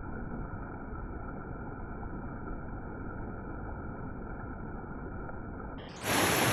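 Steady, muffled rushing noise of falling water at a waterfall. About six seconds in it jumps suddenly to a much louder, brighter hiss.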